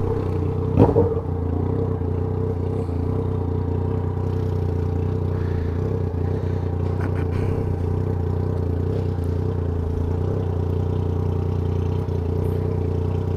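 Yamaha MT-09's three-cylinder engine idling steadily, with one quick blip of the throttle about a second in.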